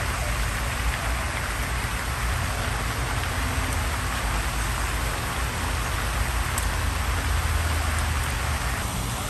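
Steady splashing hiss of a pond fountain spraying water.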